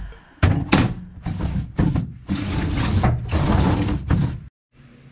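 Black plastic compartment tray knocking against and scraping across the inside of an aluminium diamond-plate truck toolbox as it is set in: a few sharp knocks in the first two seconds, then two longer scrapes. The sound cuts off abruptly near the end.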